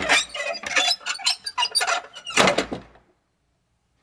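Foley of an old wooden door: a creaking, clicking swing with knocks, loudest right at the start and again about two and a half seconds in, then it stops.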